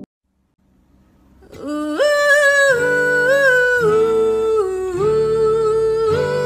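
One song ends, and after about a second of silence the next track begins: a woman's voice singing long held notes, moving in steps between pitches, over soft acoustic accompaniment.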